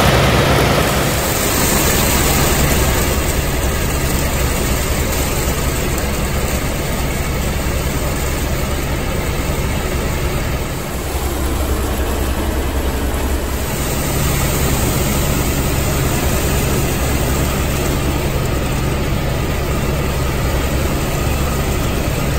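Helicopter in flight, heard from inside the cabin: a loud, steady drone of the turbine and rotor with a constant low hum.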